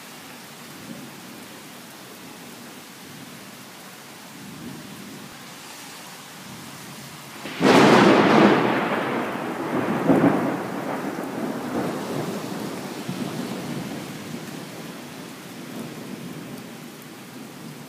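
Steady rain, then a close thunderclap about seven and a half seconds in. A sudden loud crack rolls into rumbling, surges again about two seconds later, and fades slowly back under the rain.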